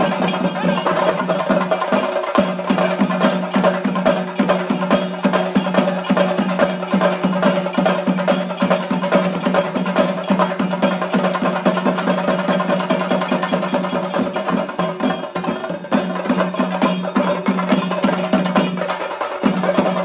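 Ensemble of chenda drums beaten with sticks in fast, dense, continuous rolls, over a steady low ringing tone.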